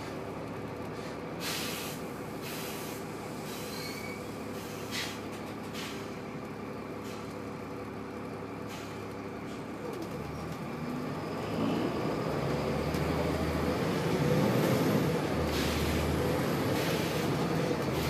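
Volvo B7RLE bus's six-cylinder diesel engine heard from inside the cabin, idling steadily with several short hisses of compressed air. About ten seconds in, it rises in pitch and gets louder as the bus pulls away.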